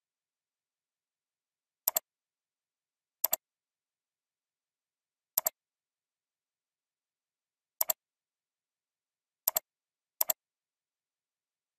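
Computer mouse clicks: six quick clicks spread unevenly, each a press-and-release pair of ticks, with dead silence between.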